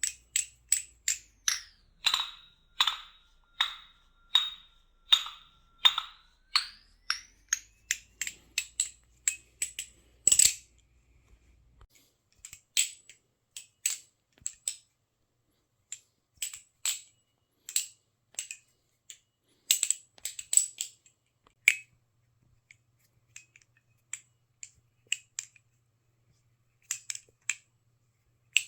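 Squid Industries Squid Trainer V4 balisong trainer being flipped through fans, its handles clacking open and shut in sharp metallic clicks. The clicks come at a steady pace with a faint ringing at first, then in quicker irregular clusters.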